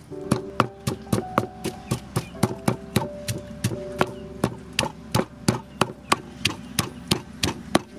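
Wooden pestle pounding curry paste in a wooden mortar: a steady run of knocks, about three to four strokes a second.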